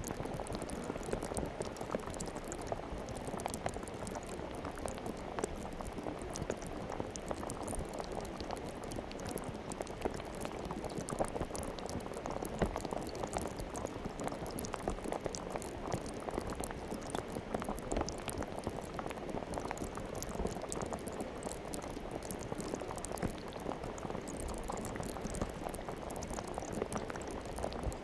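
Fluffy cloud slime being stirred and squished by hand: a steady stream of small wet pops and crackles.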